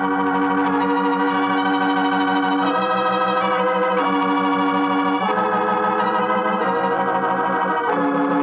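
Organ playing slow, held chords that change every second or so, with a slight wavering tremolo: a musical bridge in an old-time radio drama.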